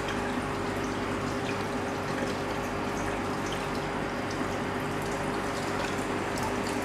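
Aquarium water circulating: steady trickling and splashing from the filter return, over a constant low pump hum, with faint small drips.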